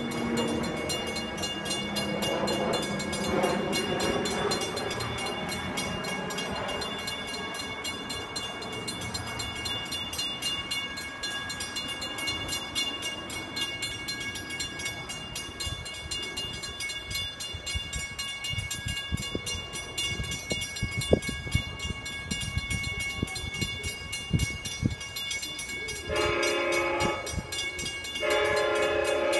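Railroad grade-crossing bells ringing steadily while the gates are down, with a few scattered knocks, one sharp. Near the end an approaching Long Island Rail Road commuter train sounds its horn in two blasts.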